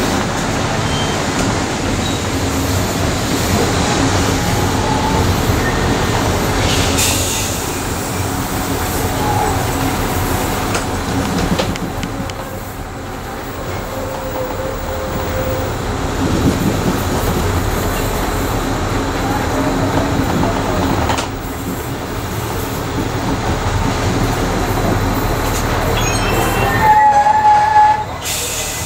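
Heritage passenger carriage running on rails behind steam locomotive 3801, heard through an open carriage window: a steady rumble of wheels and running gear. Near the end comes a brief high-pitched wheel squeal, the loudest moment.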